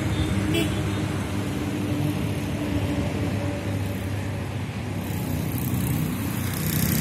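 Two electric boom barrier arms lowering to closed: a faint motor hum with a click about half a second in, over a steady low outdoor rumble.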